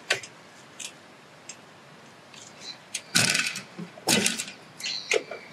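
Metal clinking and clattering from the fence-strainer chains and boundary strainer being handled: a few light clicks, then three louder clanks about three, four and five seconds in, the last with a brief ringing tone.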